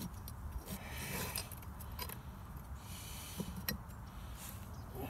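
Faint scraping and a few light metallic clicks: a steel bolt is slid into the bolt holes of a Flint and Walling CJ101 pump casing to check that the parts line up.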